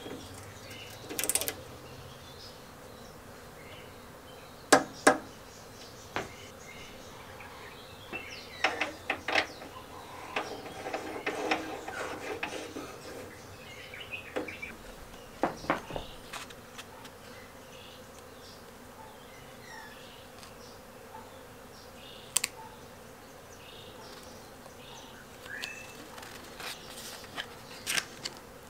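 Ratchet wrench clicking as a bolt on the lawnmower's cast side cover is tightened. Scattered sharp metal clicks and knocks follow, two loud ones about five seconds in, as parts are handled and fitted. A faint steady hum runs underneath.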